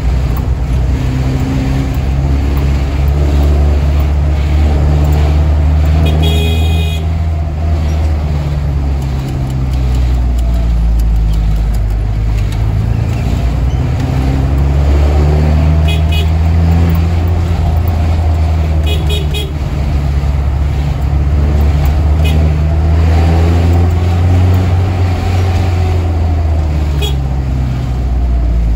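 Cabin sound of a Mitsubishi Colt L300 minibus driving in traffic: its engine rises and falls in pitch as it accelerates and eases off. A horn toots several times, the longest about a second long, some six seconds in.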